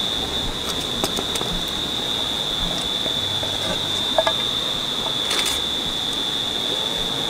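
Steady high-pitched insect drone from the surrounding bush, with a few short light clicks.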